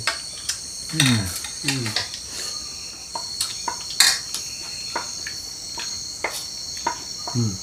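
Scattered clinks and knocks of a spoon against a dish during eating, the loudest about four seconds in, over a steady high trilling of insects. Two short low voice sounds come early.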